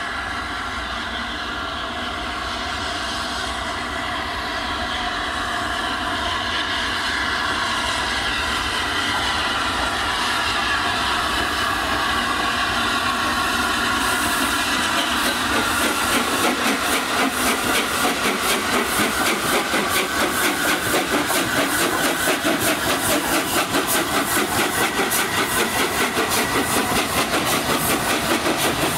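Steam-hauled train approaching and running through the station: a rumble that grows steadily louder, then from about halfway a fast, even run of clattering beats as the train passes close.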